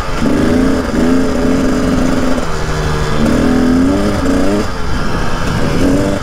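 Dirt bike engine revving in repeated bursts, its pitch rising and falling several times, as the bike struggles for grip in snow.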